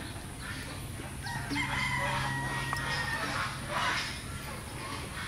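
A rooster crowing once, one long call of about two seconds starting a little over a second in, followed by a short noisy burst near the end.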